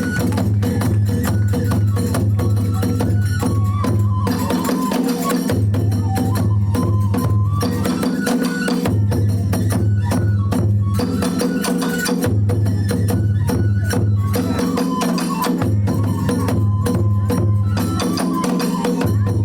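Kagura hayashi accompaniment: a dense, steady beat of drums and small hand cymbals with a pitched melody line stepping through a repeating phrase, the music cycling every few seconds.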